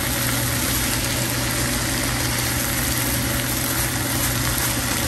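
Fried rice sizzling in a pan as it is stirred with a spatula, over a steady low hum.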